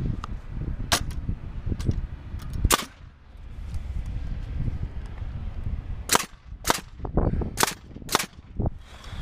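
Paslode pneumatic framing nailer driving nails into wall-framing lumber, about six sharp shots. One comes about a second in and another a little before three seconds, then four in quicker succession from about six to eight seconds.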